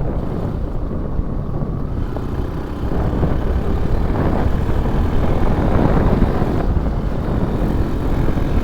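Motorcycle running on the move, mixed with wind buffeting the microphone; it grows a little louder about three seconds in.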